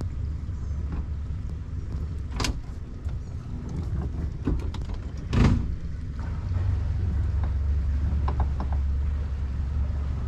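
Boat's outboard motor idling with a steady low hum while the boat moves slowly out of its slip. A sharp knock comes about two and a half seconds in and a louder thump about five and a half seconds in, with a few light ticks later.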